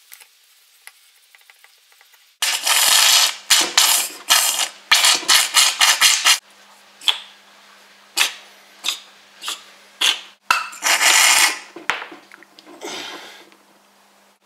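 Harsh scraping and clattering from a 5-tonne hydraulic bottle jack being handled and worked apart. About two and a half seconds in comes a fast run of scrapes for about four seconds, then separate scrapes and knocks, with a longer one near the end.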